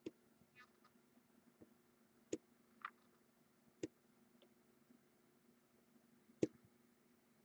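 A few sharp computer-mouse clicks, about four spaced a second or more apart, over a faint steady hum in an otherwise near-silent room.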